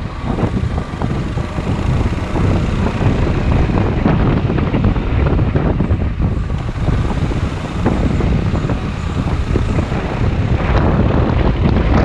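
Maxi scooter riding at low speed along a winding road, its engine and tyre noise under steady wind rumble on the microphone.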